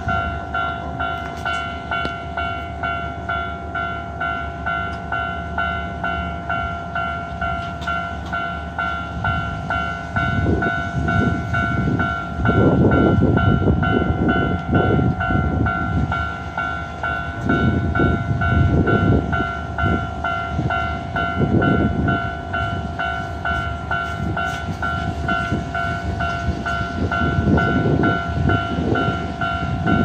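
Electronic level-crossing alarm on a Hankyu Railway crossing ringing steadily in an even repeating pattern, signalling that the crossing is closed. From about ten seconds in, a low rumbling noise comes and goes in irregular surges over it.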